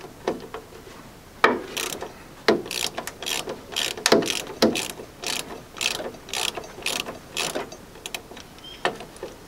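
Ratchet spanner clicking in short runs, about two strokes a second, as it undoes the nuts on the bulkhead bracket bolts through a Land Rover chassis.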